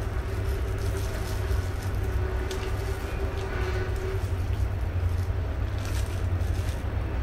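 A steady low rumble with a faint constant hum, under a few soft clicks and smacks of a person eating chicken adobo.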